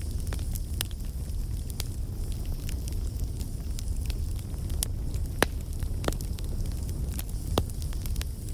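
Campfire burning: a steady low rumble of flames with irregular crackles and sharp pops of burning wood, one pop standing out about halfway through.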